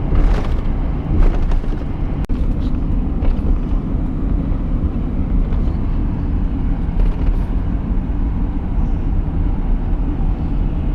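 Steady low rumble of a truck on the move, heard from inside the cab, with one sharp click about two seconds in.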